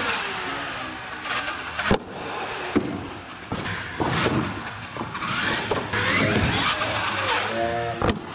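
Electric R/C monster truck motors whining as they rev up and down, broken by several sharp knocks of the trucks landing and tumbling on the floor and ramps.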